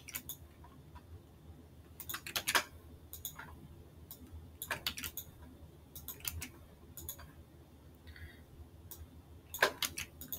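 Computer mouse clicks and keyboard keystrokes, scattered and mostly in quick clusters of two to four, as cells are selected, copied and pasted in a spreadsheet.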